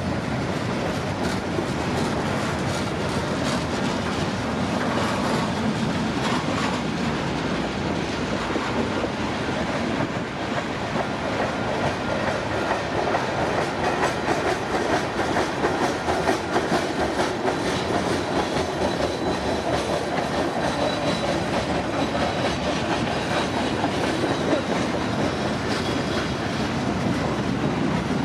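Freight cars of a CPKC train, cylindrical grain hoppers among them, rolling steadily past at close range, their wheels clicking over the rail joints.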